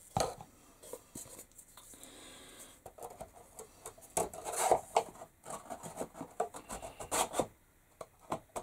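Thin wooden parts scraping, rubbing and clicking against each other in irregular strokes as a glued shelf is worked into the notched slots of a flat-pack wooden storage unit.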